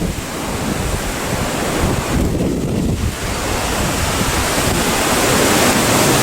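Strong gusty wind rushing and buffeting the microphone. It eases briefly about two seconds in, then builds to its loudest near the end.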